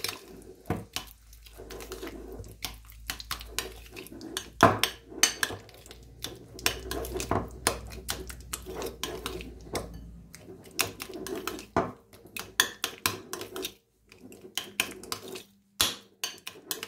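Metal fork stirring a thick cream-cheese and sour-cream mixture in a ceramic bowl, clinking and scraping against the bowl in quick, irregular taps, with short pauses near the end.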